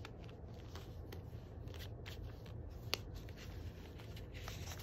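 Paper being handled close up: journaling cards slid back under a paper clip and a journal page turned, soft rustles and taps with one sharp click about three seconds in.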